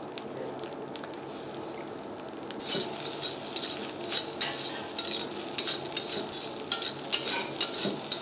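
Egg fried rice sizzling in a stainless steel kadai; about two and a half seconds in, a metal spatula starts tossing and scraping the rice around the pan, about two strokes a second.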